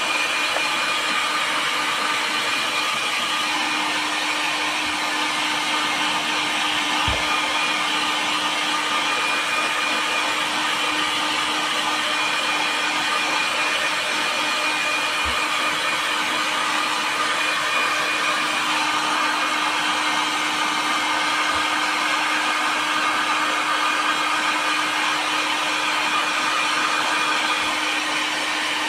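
Electric heat gun running steadily, a continuous rush of hot air with a steady low hum underneath, played over a plastic bottle to shrink it around a battery pack.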